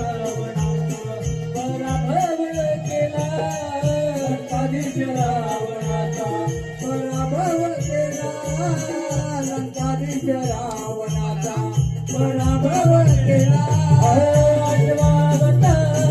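Instrumental interlude of Konkan Naman folk music: a wavering melody over a steady drum beat and jingling, rattling percussion, growing louder about twelve seconds in.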